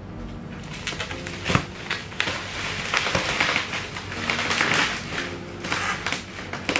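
Black plastic wrapping around a cardboard box being pulled off and crumpled: an irregular run of crackling and rustling, with a sharp snap about a second and a half in.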